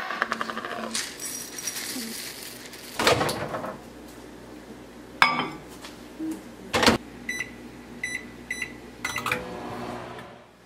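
Kitchen sounds of microwaving oatmeal: rolled oats rattling into a ceramic bowl, a few knocks and a loud clunk as the microwave door shuts, then a quick run of short, high beeps from the microwave's keypad about seven seconds in.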